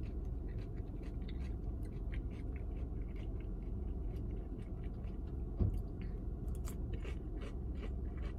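A person chewing food with the mouth close to the microphone: a stream of small wet clicks over a steady low rumble, with one low thump about five and a half seconds in.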